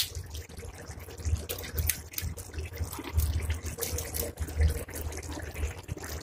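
Thick curry gravy simmering and bubbling in an aluminium pot, with irregular small pops and splutters over a low rumble, as raw eggs are dropped into it.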